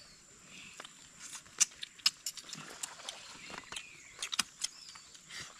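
People eating with their hands at close range: irregular lip-smacking and chewing clicks, with a few short squeaky mouth sounds.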